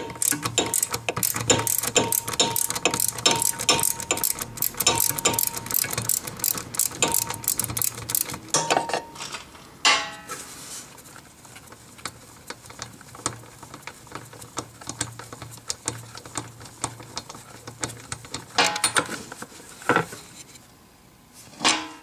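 Ratchet handle on a spark plug socket clicking in quick, steady runs as the spark plug is loosened counterclockwise. After about eight seconds the clicking stops and gives way to scattered metal clinks and knocks as the socket and plug are worked free.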